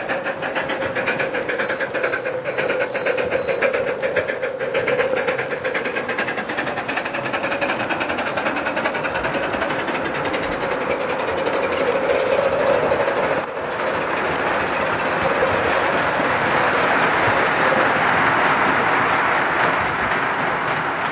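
Live-steam model locomotive running under steam, its exhaust chuffing in a fast, even rhythm, with its wheels rolling on the rails. From about two-thirds of the way through, the sound turns to a more even hiss.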